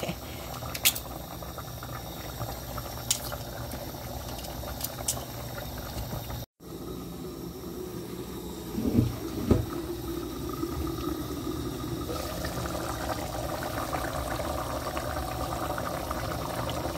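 Pot of soup broth at a rolling boil, a steady bubbling hiss, with a few light clicks in the first seconds and a couple of soft thumps about nine seconds in.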